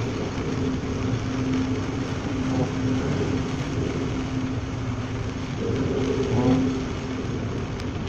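Steady drone of a bulk carrier's engine and machinery, a constant low hum, under a rushing wash of wind and heavy sea; it swells slightly about six seconds in.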